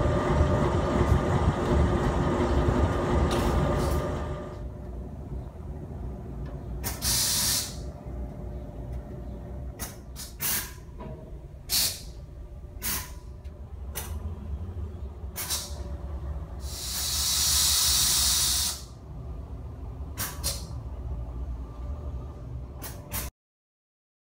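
Diesel locomotive idling with a low, steady rumble, which drops to a quieter hum after about four seconds. Over it come bursts of air hissing from the locomotive's air brake system: a short one about seven seconds in, and a longer one of about two seconds later on. Scattered sharp clicks are heard as well.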